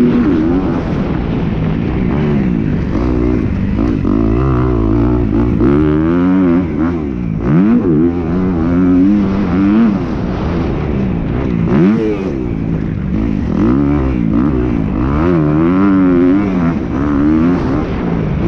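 Motocross bike engine revving hard, its pitch climbing and falling over and over as the rider opens and closes the throttle and shifts through the gears.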